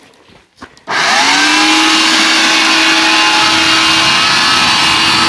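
Leaf blower starting up about a second in, its motor whine rising quickly to a steady pitch over a loud rush of air, fanning a bonfire.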